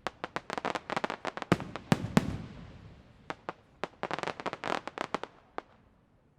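Fireworks going off: fast runs of sharp crackling reports with two louder booming bangs about a second and a half and two seconds in. A second burst of crackling follows, then it dies away near the end.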